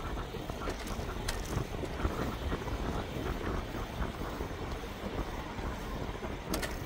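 Steady wind rumble on a phone microphone while riding an e-bike, mixed with road noise and a few short clicks, the sharpest near the end.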